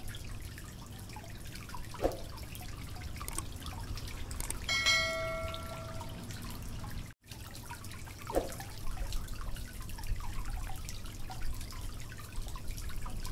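A single bell-like notification chime rings for about a second, five seconds in, the sound effect of a subscribe-button animation. Under it runs a low hum with faint drip-like clicks, and the sound cuts out for an instant about seven seconds in.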